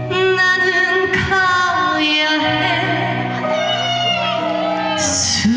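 A female trot singer sings live over a backing track, holding notes with vibrato, amplified through a PA system.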